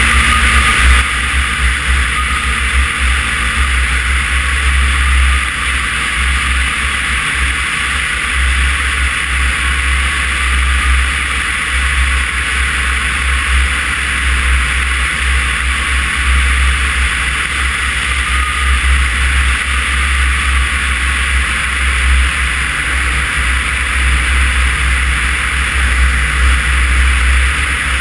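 Cessna 140's engine and propeller running steadily in cruising flight, mixed with a heavy wind rumble on a camera mounted outside the cabin.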